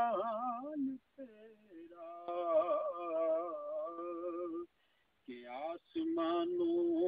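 A man singing a naat unaccompanied, holding long ornamented notes with a wavering pitch. He breaks off briefly about a second in and again around five seconds in.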